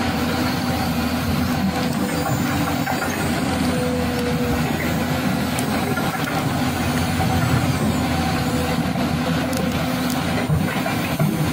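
Steady engine-like running sound, like a truck or digger engine, with a few faint steady tones over a continuous rumble.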